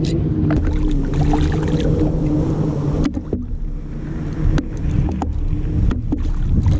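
A hooked fish splashing beside a plastic fishing kayak, with several sharp knocks against the hull, over steady wind and water noise. A low hum runs through the first half and stops abruptly about three seconds in.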